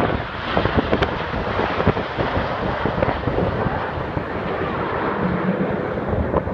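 Steady rushing jet noise from the Red Arrows' formation of BAE Hawk jets passing overhead, with wind buffeting the microphone.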